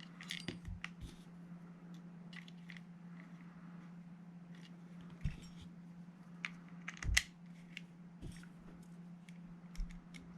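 Scattered light clicks and taps of small metal rifle parts and an Allen key being handled on an airsoft receiver, with a couple of sharper knocks about five and seven seconds in, over a steady low hum.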